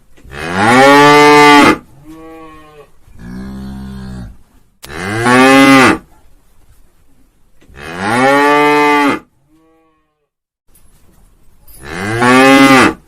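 Cows mooing: four loud, long moos, each rising and then falling in pitch, a few seconds apart, with two quieter, lower moos between the first and second.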